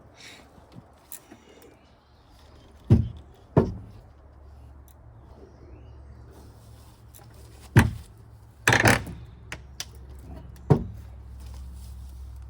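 A handful of sharp knocks and bangs a few seconds apart, the loudest cluster a little past the middle, over a low steady hum.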